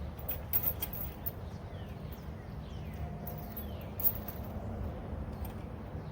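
Steel chain being handled, giving a few sharp metal clinks in the first second and a louder one about four seconds in, over a low steady rumble.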